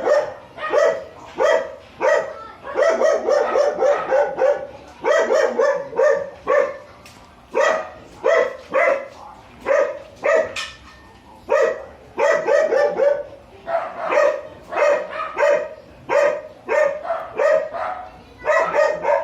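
A young animal calling over and over in quick clusters of short, high yelps or cries, several a second, with brief pauses between the bursts.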